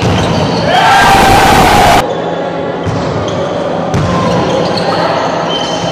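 Volleyball rally in an echoing gym hall: sharp knocks of the ball being hit, about a second apart, with players' voices. For the first two seconds a loud rushing noise covers everything and then cuts off suddenly.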